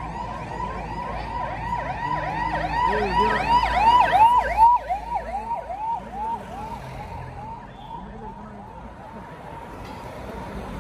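Police siren on a convoy vehicle, a fast rising-and-falling yelp, growing louder to a peak about four seconds in, then fading as the vehicle passes.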